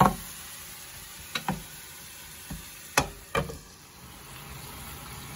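Onions, green peppers and tomatoes sizzling softly in olive oil in a frying pan, with a few knocks of a wooden spoon on the pan. About three seconds in, two sharp clinks as a glass lid is set down on it.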